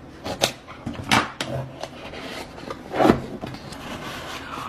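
Cardboard product box and its packing being handled and opened: rubbing and scraping, with a few sharp knocks and clicks, the loudest about a second in and about three seconds in.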